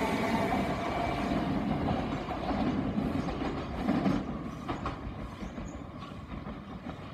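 Southern Class 377 Electrostar electric multiple unit pulling away and receding. Its traction-motor whine dies away in the first second, leaving a fading rumble with a few sharp wheel clicks over the rail joints about four seconds in.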